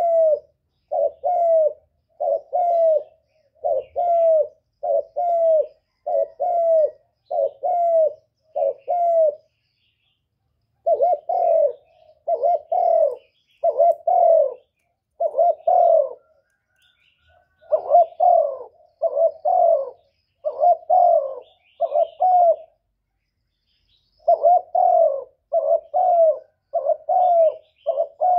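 Spotted dove cooing: runs of short, low coo notes, about two a second, broken by brief pauses three times.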